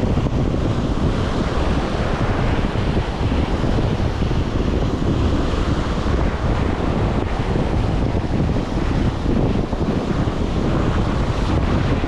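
Wind buffeting the microphone: a steady, loud rushing noise, heaviest in the low range.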